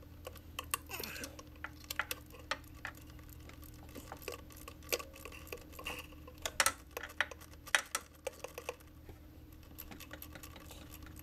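Irregular light metallic clicks and clinks of a ratchet with an extension turning out the 7 mm fuel rail bolts, over a faint steady hum.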